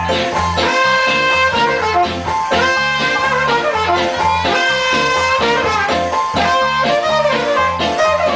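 Live ska band playing: trumpet and saxophone hold long melody notes together over a pulsing bass line and a steady beat.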